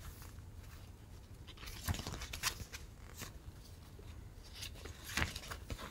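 A sticker sheet and its paper backing handled by hand: faint rustling with a few sharp crinkles, the clearest about two seconds and five seconds in.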